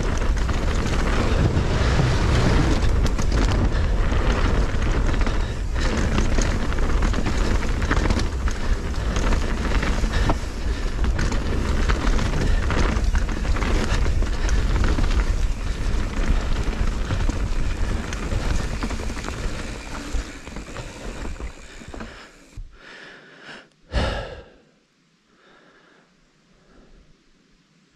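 Wind buffeting a helmet-mounted action camera's microphone, mixed with tyre roar and clattering from a mountain bike descending a fast, rough trail. It fades out about 22 seconds in, and after one brief loud rush about two seconds later it is nearly quiet.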